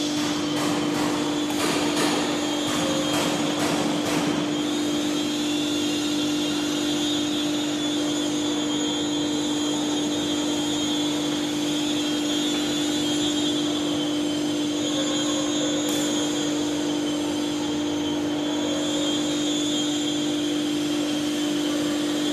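Animatronic dinosaur's electric drive motors running, a steady mechanical hum with one constant tone as the figure moves its head and body. There are a few sharp clicks in the first four seconds.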